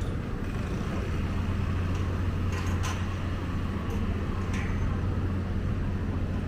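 Street ambience: a steady low rumble of road traffic, with a few short clicks around the middle.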